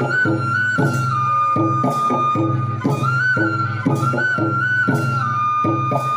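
Bodo folk dance music over a loudspeaker. A bamboo flute holds a high melody that steps back and forth between two notes, over a steadily repeating drum rhythm.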